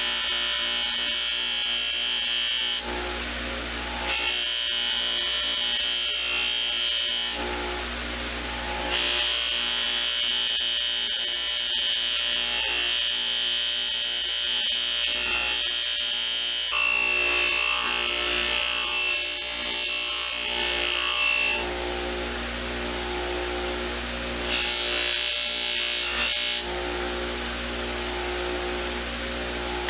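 A small power tool, likely a rotary buffing tool, polishing the brass case of a Zippo lighter. It runs in four bursts: a few seconds each at first, then one long run of about twelve seconds, then a short one near the end.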